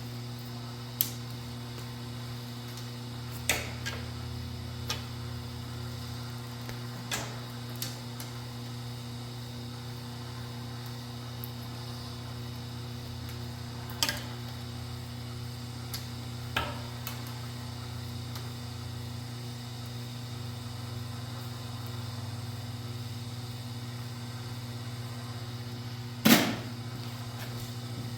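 Steady low electrical hum, with scattered sharp clicks and knocks from copper wire, pliers and a wire stripper being handled while Romex is stripped; the loudest knock comes near the end.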